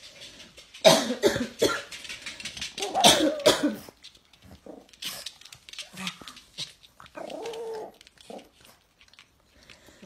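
A person coughing hard in two loud fits, about one and three seconds in, and a pug barking in reply with a short drawn-out bark about seven seconds in.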